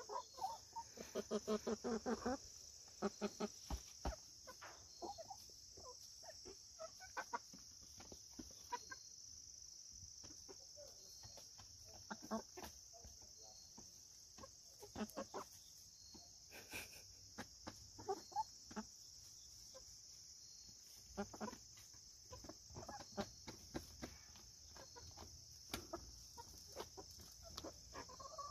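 Chickens clucking in short, scattered calls, with a quick run of clucks near the start. A steady high-pitched insect chorus runs underneath.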